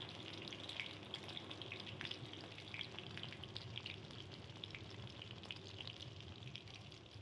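Batter-coated chicken pieces deep-frying in hot oil in an iron kadai: a steady sizzle dotted with many small crackles.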